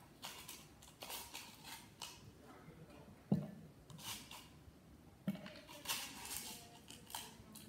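Ice cubes rattling and scraping in a plastic cup as they are picked out by hand, with short scratchy handling noises and two sharp knocks, the louder one about three seconds in.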